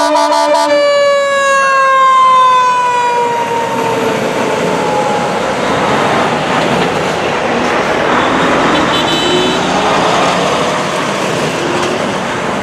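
A fire engine's air horn blasts, then stops about a second in, and its siren winds down with a falling pitch over about four seconds. After that the engine and road noise of the passing fire apparatus run steadily.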